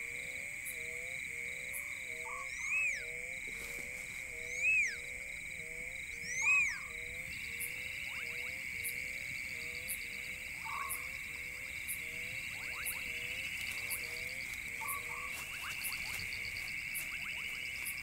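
Night chorus of frogs croaking in a steady rhythm, a few croaks a second, over a continuous high insect trill. Three louder rising-and-falling calls come in the first half, and a faster pulsing insect trill joins about seven seconds in.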